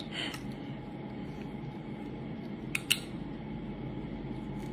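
Sunflower seed shells cracking open with sharp clicks: one just after the start, then two in quick succession about three seconds in, the second the loudest. A steady background hum runs beneath them.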